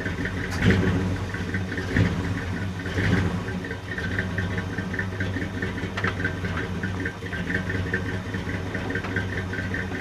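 The 1969 Chevy C10 pickup's engine runs steadily in its first run after 15 years without starting, "purring like a kitten". A light, rapid, even ticking rides over the steady run, and a few knocks come in the first three seconds.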